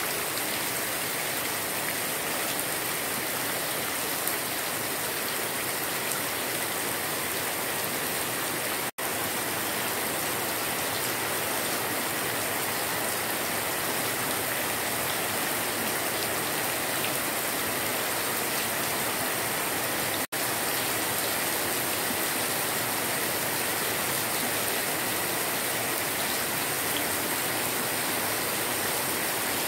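Heavy tropical rain pouring down steadily, a dense even hiss of drops on grass, ground and running surface water. The sound cuts out for an instant twice, about nine and twenty seconds in.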